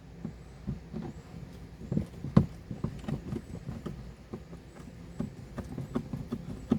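Screws being started by hand with a screwdriver into a Scotty mount base: irregular small clicks and light knocks, with one sharper knock about two and a half seconds in.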